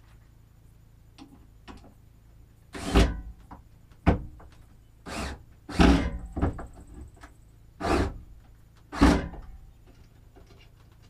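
About seven loud, separate knocks and clunks as equipment is handled and positioned against a plywood mounting board. They come at uneven intervals over about six seconds, each with a short ring after it.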